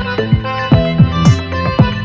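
Background electronic music with a steady beat: punchy bass drum hits that drop in pitch, about two to three a second, under sustained synth notes.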